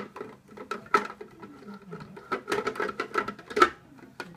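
Plastic parts of a vertical slow juicer knocking, clicking and scraping as the top housing and hopper are pressed on and twisted into place. There are a series of sharp clicks, with the loudest near the end.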